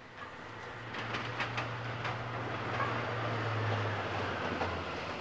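Train noise in a railway yard: a low rumble and rattling of rail cars that grows louder over the first second, with a low hum that stops just before the end.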